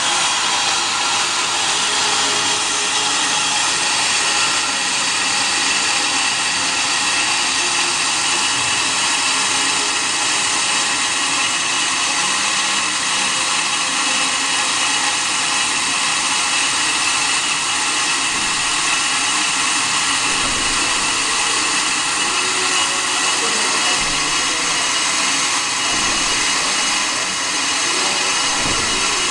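On-car brake lathe turning a brake disc on the car's hub: a steady, high-pitched machining noise with several steady tones, running evenly throughout.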